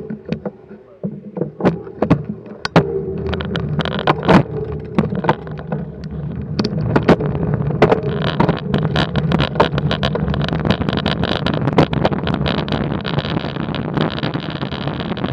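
Road bicycle setting off from a standstill and picking up speed, heard through a bike-mounted camera: wind and road noise grow louder about three seconds in and again after about eight seconds, with many sharp clicks and rattles throughout.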